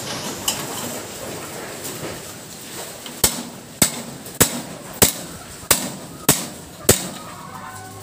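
Hammer blows in a steady rhythm, one about every 0.6 seconds, starting about three seconds in, each a sharp knock.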